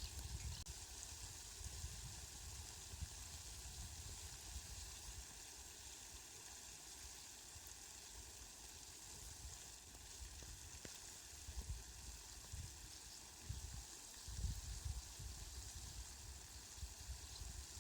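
Steady, faint rain hiss, with low rumbles that swell and fade several times.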